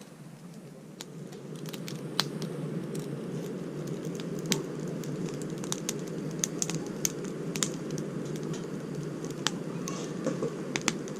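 Wood campfire burning with irregular sharp crackles and pops over a steady low rush, which grows a little louder over the first couple of seconds.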